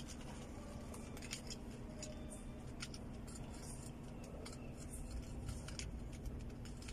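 Hot-stapler plastic welder's glowing staple melting into the plastic: faint irregular crackling over a steady low hum.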